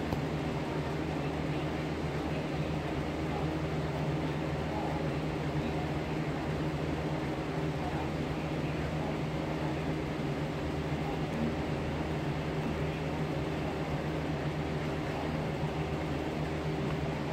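Electric fan running steadily, a constant hum with an even hiss of air.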